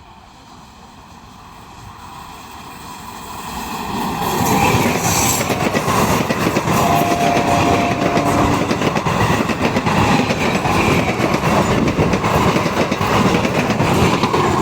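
A train approaching and growing louder over about four seconds, then passing close by at speed with steady rail noise and the rapid clickety-clack of wheels over rail joints.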